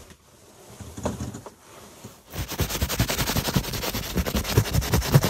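Hand scraping and brushing thick frost off the inside of an insulated ice-shelter's fabric wall: a fast, rough scratching that starts a couple of seconds in and keeps going.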